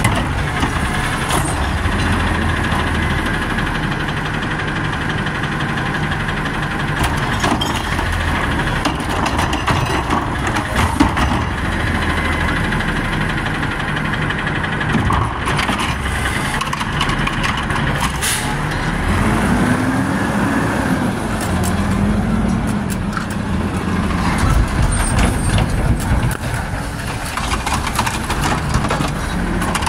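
Garbage truck engine running and being revved hard, its pitch rising and falling about two-thirds of the way in, with a few short hisses and clunks from the truck's air and hydraulic systems.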